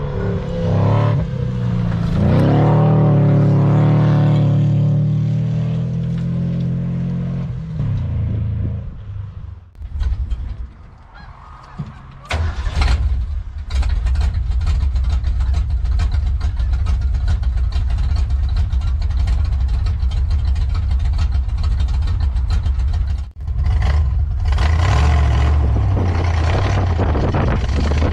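A car engine revs up and holds at high revs, then drops away about eight seconds in. After a short lull, the engine of a stripped, open-top 4x4 runs steadily as it drives over the rough wood-chip track, with the loose body rattling and knocking.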